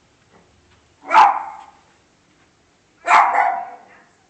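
A dog barking, two single loud barks about two seconds apart.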